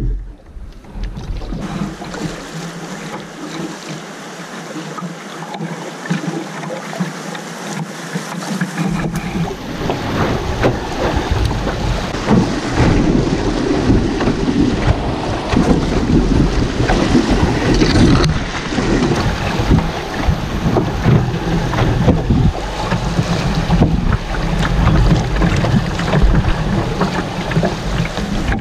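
Loud rushing whitewater of a river rapid, heard from a canoe running through it.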